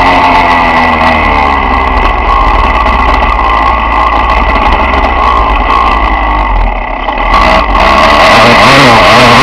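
Dirt bike engine running hard as the bike is ridden around a motocross track, its pitch rising and falling with the throttle. About seven seconds in the throttle is rolled off briefly and the sound drops, then it is opened up again.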